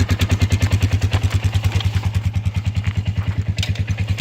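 A small engine running steadily at idle, with a rapid even pulse of about a dozen beats a second.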